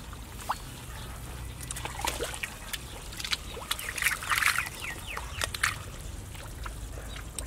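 Wet mud and shallow water squelching, splashing and slapping as hands grope through a muddy canal bed for fish, in irregular sharp splats that come thickest about four seconds in.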